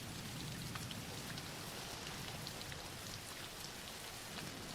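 Soft, steady rain falling on a surface, with many small scattered drop ticks: a continuous rain ambience bed laid under the narration.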